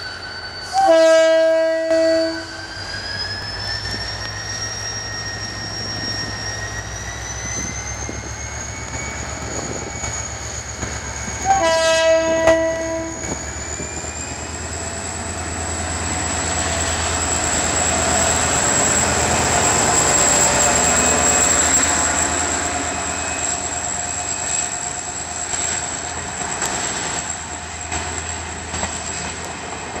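GT22 diesel-electric locomotive sounding its horn twice, blasts of about a second and a half roughly ten seconds apart, over its steady engine rumble and a high whine that rises in pitch and then holds. The train grows loudest about twenty seconds in as the locomotive passes, then the coaches follow with a light clatter of wheels over the rail joints.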